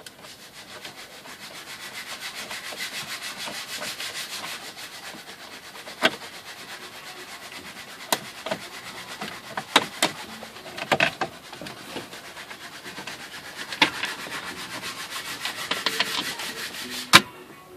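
Continuous rasping, rubbing noise with several sharp clicks and knocks, the loudest near the end, from hand-tool work unscrewing the Torx screws under the glove box of a BMW E90 dashboard.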